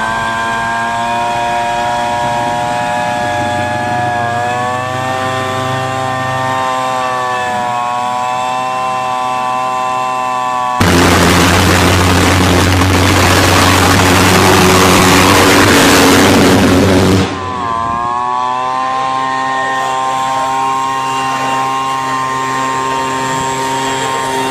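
A two-stroke leaf blower engine runs steadily, its pitch rising twice, while it is used to start a homemade jet-powered bicycle. About eleven seconds in, a much louder rushing roar of blown air and jet starts up; it lasts about six seconds and stops abruptly.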